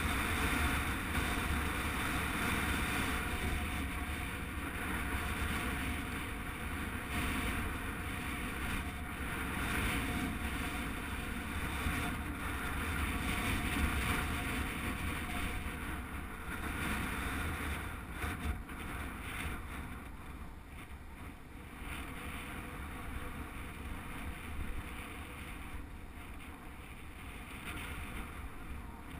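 Steady wind rumble and buffeting on the microphone of a camera riding along on a moving bicycle, easing somewhat in the second half.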